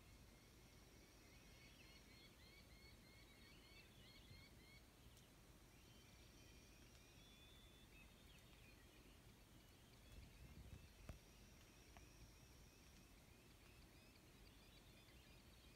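Near silence with faint distant birds: runs of quick repeated chirps and a thin high whistle that recurs about every five seconds. A soft low thump with a click comes about eleven seconds in.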